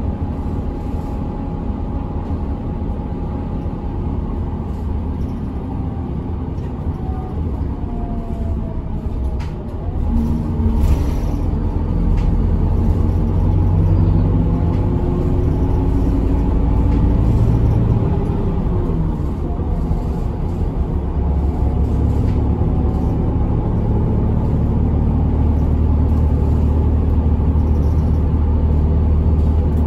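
Route bus engine heard from inside the passenger cabin, running under way with road rumble. The engine note rises as the bus picks up speed about a third of the way in, drops at a gear change a little past halfway, then runs steady.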